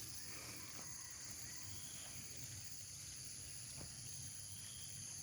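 Steady high-pitched insect chorus, several held shrill tones layered together, over a faint low rumble.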